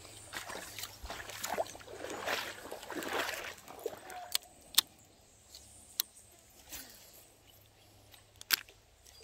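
An angler walking a sandy riverbank while handling a fishing rod and reel: irregular rustling and scuffing for the first few seconds, then a handful of sharp clicks, the loudest about five seconds in and another near the end.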